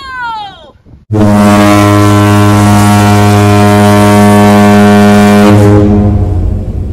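A long red plastic stadium horn blown in one loud, steady, low note. The note starts about a second in and holds for roughly five seconds before tapering off near the end.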